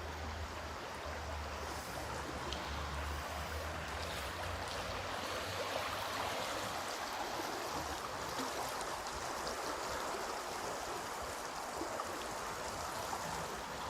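River in flood, running high and fast after heavy rain: a steady, even rush of water, with a low rumble under it during the first half.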